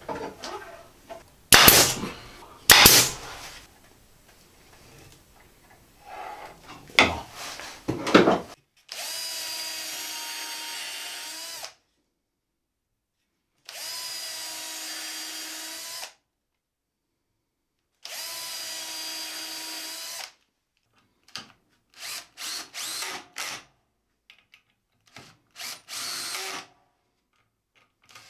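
Cordless drill running in three steady spells of two to three seconds each, drilling into a pine board, then several short trigger bursts near the end. Before the drilling there are a few loud knocks, the two loudest close together in the first three seconds.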